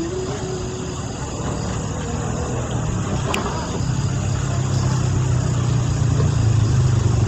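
An engine running steadily, growing louder about four seconds in, with a single sharp click partway through.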